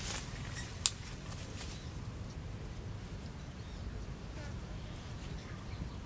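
A duck struggling in leafy undergrowth: rustling and a sharp snap about a second in, over a steady low rumble. The duck then goes still and only the rumble remains.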